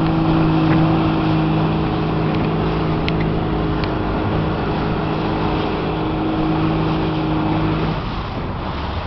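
Motorboat engine running at a steady hum, with the rush of wind and water over it. About eight seconds in, the engine note falls away and the sound drops, leaving mostly wind and water.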